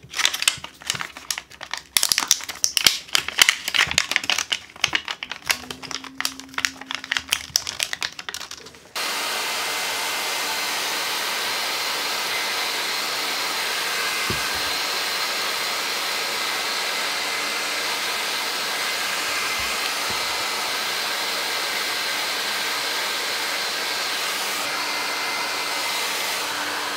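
Crackling and crinkling of a thin PVC heat-shrink sleeve being worked over a battery pack by hand. About nine seconds in, a hair dryer switches on and runs steadily, blowing hot air to shrink the sleeve.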